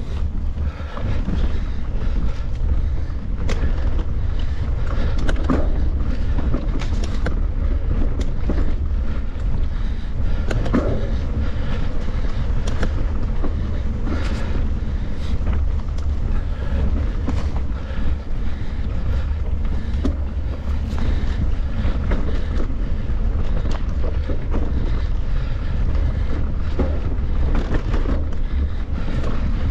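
Wind buffeting the microphone with a steady low rumble, over the frequent rattles and knocks of a mountain bike riding over rough trail.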